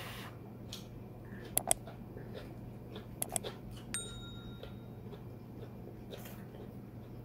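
Sharp mouse-click sound effects from a subscribe-button animation: two pairs of clicks, then about four seconds in a click with a short ringing bell ding. Under them are a steady low hum and faint small ticks from hands picking at food.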